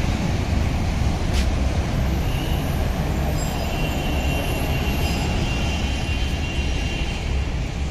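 Road traffic: a steady low rumble of passing vehicles, a city bus among them, with a faint high squeal for a couple of seconds around the middle.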